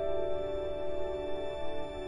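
Slow, gentle background music: a held chord dying away, no new notes struck.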